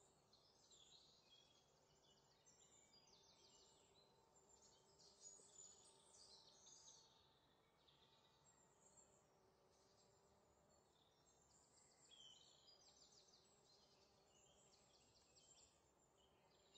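Near silence, with faint bird chirps and trills coming and going.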